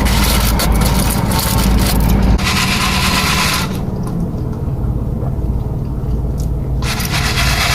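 Eating and drinking noises close to the microphone: crackly clicks and handling, with a hissing burst lasting about a second, about two and a half seconds in. The hiss fits a sip of sweet tea.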